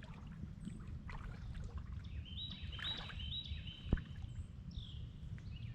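Small birds calling in quick runs of short, stepped chirps over a low, steady outdoor rumble, with a single sharp click about four seconds in.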